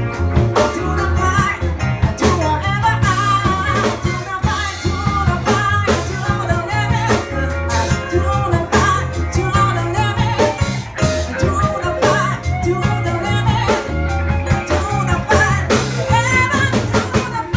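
A live band playing a song: a singer over guitar, a strong bass line and drum kit.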